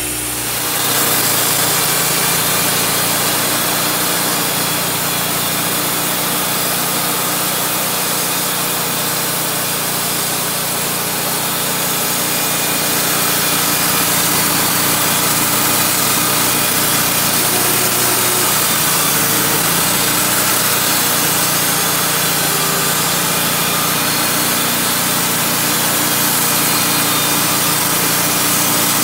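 Wood-Mizer LT35 portable band sawmill running under load, its engine running steadily as the band blade cuts through a pine log.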